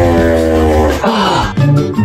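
Background music: a long held note that breaks off about a second in, followed by a different tune with a quick beat.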